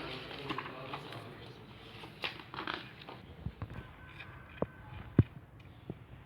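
Handling noise: rustling, then a few sharp knocks and clicks, the loudest about five seconds in.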